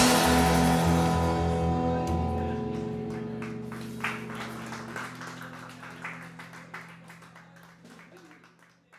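The band's last chord rings out and fades away. Electric guitar and upright bass notes hang on and die down slowly over several seconds, with scattered soft clicks and knocks as the sound fades.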